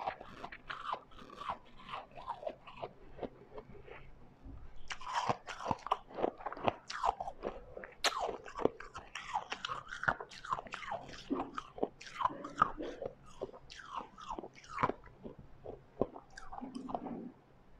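Close-up crunching of refrozen white ice being bitten and chewed, with dense rapid crackles that thin out briefly a few seconds in, then pick up again.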